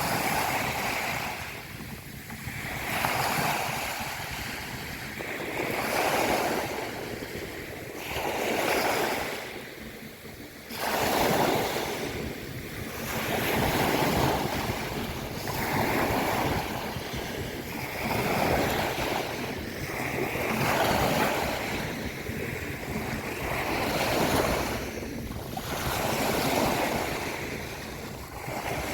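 Sea waves breaking and washing on a beach, the surf swelling and falling back every two to three seconds, with wind buffeting the microphone.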